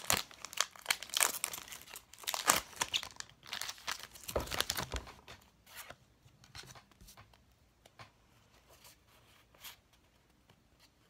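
Foil wrapper of a Pokémon Trading Card Game booster pack being torn open and crinkled, in a run of rips and crackles over the first five seconds. After that only a few faint ticks.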